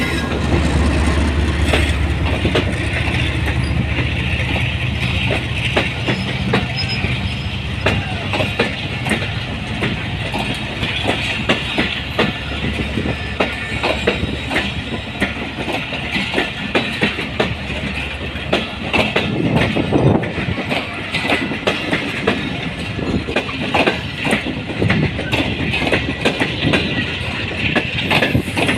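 Pakistan Railways passenger coaches running past close by, the wheels clattering over rail joints in a dense, irregular run of clicks over a continuous rumble and a steady high hiss from wheels on rail.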